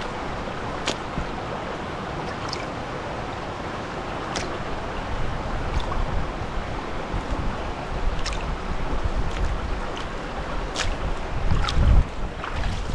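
Shallow stream running and splashing around hiking boots standing and stepping in the water, with scattered sharp little splash clicks. Heavier low splashing and rumbling sets in about five seconds in, with a loud low thump near the end.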